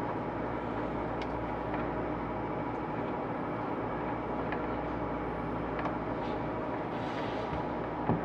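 Steady machine-like hum and hiss, with a few faint light ticks scattered through it.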